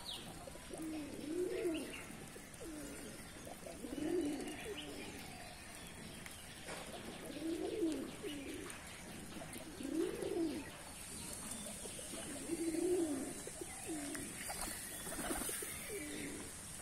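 Domestic pigeons cooing: a low coo that rises and falls, repeated every two to three seconds.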